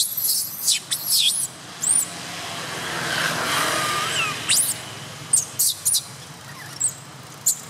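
Baby long-tailed macaque crying: short, high-pitched squeals in clusters near the start, again after the middle, and near the end. Midway, a passing vehicle swells and fades in the background.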